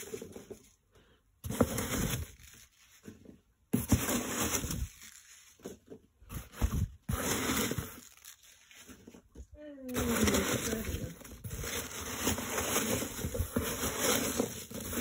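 Hand rummaging through loose polystyrene packing peanuts in a cardboard box, rustling and scraping in bursts with short pauses, then more continuously. About ten seconds in, a short pitched squeak falls in pitch.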